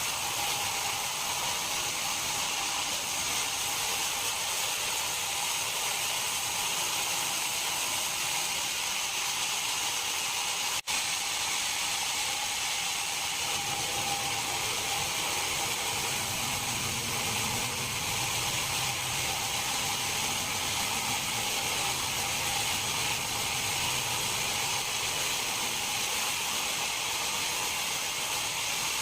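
Steady hiss and hum of running factory machinery, with a brief cut-out about eleven seconds in.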